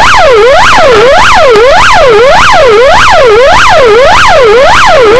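Police patrol car's electronic siren in a fast yelp, its pitch sweeping up and down a little over twice a second, very loud. It signals a motorcyclist being pursued to pull over.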